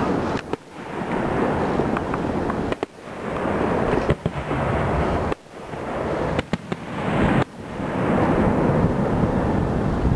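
Aerial fireworks shells bursting: loud booms and crackling, with sharp cracks about four and six and a half seconds in. The level drops suddenly and briefly every two or three seconds.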